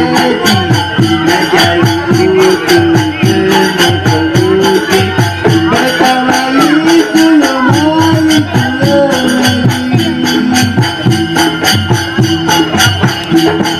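Traditional Malay wayang kulit ensemble music: a wavering, ornamented melody over a steady pattern of drum and metallic percussion strikes.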